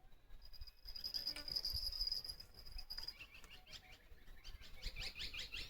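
Wild birds and insects calling: a high, steady trill for about two and a half seconds, then a run of quick falling chirps.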